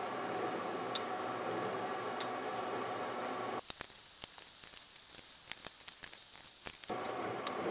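Light metallic clicks from a four-jaw lathe chuck being turned and adjusted by hand, over a steady hum. For about three seconds in the middle the hum drops out and a hiss with quicker clicking takes its place.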